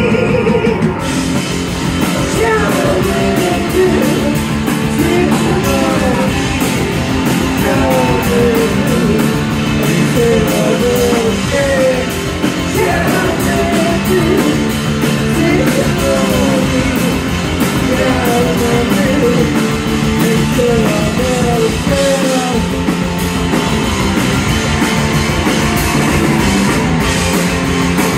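Live rock band playing loud: a singer singing into a microphone over electric guitars, bass guitar and a drum kit.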